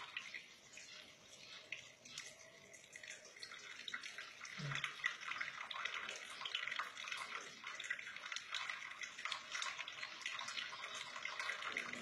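Tap water running and splashing into a stainless steel sink and over cupped hands, a steady hiss with fine spattering.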